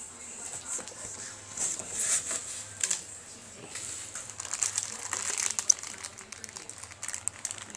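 Plastic wrapping crinkling and rustling as it is handled among cardboard and foam packing, in irregular crackles that grow busier in the second half.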